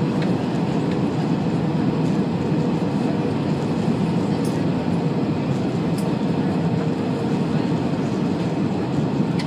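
Airbus A320 cabin noise on approach: a steady low rumble of airflow and engines, with a faint steady hum running under it.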